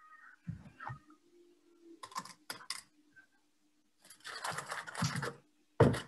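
Metal ice cream scoop clinking and scraping against a small glass dessert bowl and a foil-covered tub while ice cream is served. There are a few soft knocks, then three quick taps about two seconds in, a longer scraping clatter, and a sharp knock near the end.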